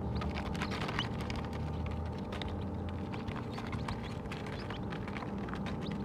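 Chicks pecking at crushed grain in a plastic feeder: quick, irregular tapping clicks over a steady low hum.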